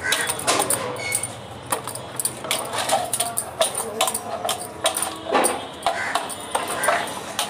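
Bangles clinking and jingling on the wrists while hands press and rub soft chhena against a brass plate, giving irregular clicks and taps.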